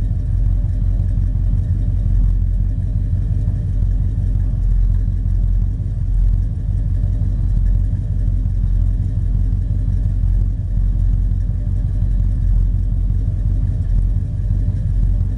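Exhaust of a 1979 Chevy's engine running steadily through Flowmaster 50 Series mufflers, a deep, even rumble with no revving.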